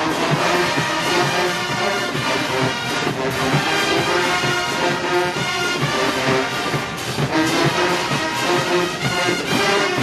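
HBCU show-style marching band playing full brass, trombones and trumpets together, over a steady drum beat.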